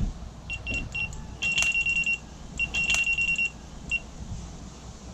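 Electronic carp bite alarm sounding: a string of quick high single-note beeps that twice run together into a continuous tone, the signal of a fish taking line from the rod. Wind rumbles on the microphone underneath.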